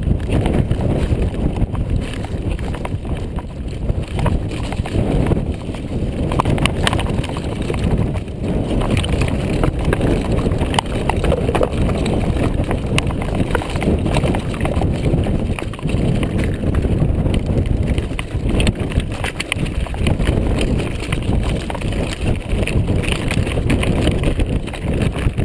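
Mountain bike rattling and knocking continuously as it rides down over rough stone slabs and loose rocks, with many sharp knocks from the bike jolting over the stones. Low wind rumble on the camera microphone underneath.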